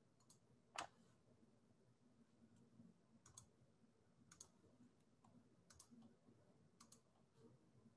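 Faint computer mouse clicks at a desk over near silence: one louder click about a second in, then several quick double-clicks spread across the rest.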